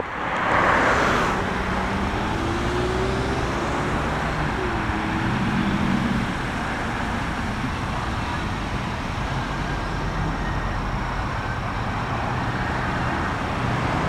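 Steady road traffic noise: a continuous hiss of passing vehicles over the low hum of engines.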